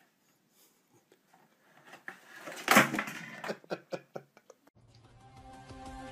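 Several sharp knocks and a clatter of small hard objects being bumped, the loudest a little under three seconds in. A faint steady hum follows near the end.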